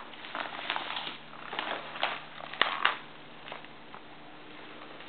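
Padded paper mailer rustling and crinkling as a small child handles it: a run of short rustles over the first three seconds, the loudest two close together near the end of them.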